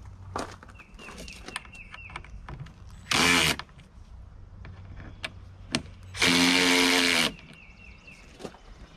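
Handheld electric screwdriver running in two bursts, a short one about three seconds in and a longer one of about a second near six seconds, driving the bolts that fasten a motorcycle windscreen to its mounting arms. Light clicks of handling fall between the bursts.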